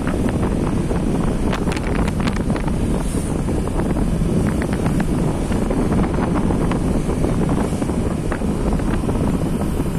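Wind buffeting the microphone over the steady low rumble of a slowly moving vehicle, with many scattered light clicks and rattles.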